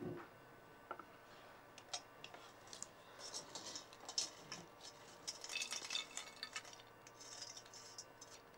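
Faint scraping and light clinks of a dark pan being emptied with a ladle. Small sugar-coated fried dough sweets (sangu seedai) tumble onto a glass plate in a few short rattling bursts.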